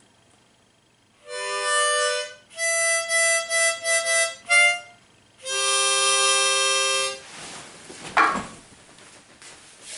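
Harmonica played in chords: a held chord, a run of short repeated chords, a brief one, then a long held chord that stops about seven seconds in. A short rush of noise follows about a second later.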